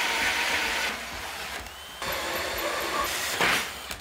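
Cordless drill driving a hole saw through 6 mm steel plate, with a steady grinding, hissing cutting noise. It eases off for about a second and then picks up again.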